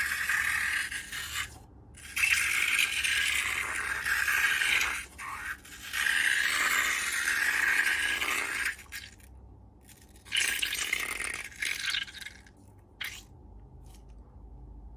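Repeated scraping and rattling in bursts of one to three seconds, with short pauses between them.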